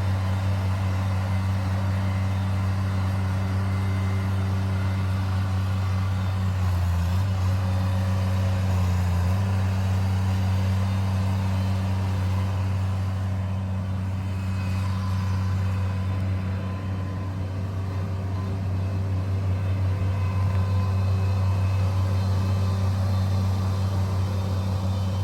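Manitou 1500R skid steer loader's engine running steadily at one speed, with a deep even hum.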